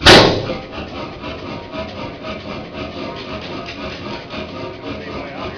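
Horizontal single-cylinder sideshaft hit-and-miss engine, a 35 hp Columbus Camstopper, firing once with a loud sharp bang at the start, then coasting on its flywheels through miss cycles with a steady, evenly repeating mechanical clatter of its valve gear and running parts.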